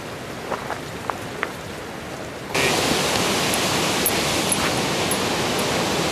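A few sharp footstep clicks on a rocky trail, then about two and a half seconds in a loud, steady rush of falling water from a waterfall starts abruptly.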